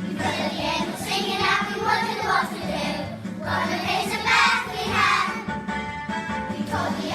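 A group of children singing a song together over instrumental backing music, in phrases of a second or two with a short break about three seconds in.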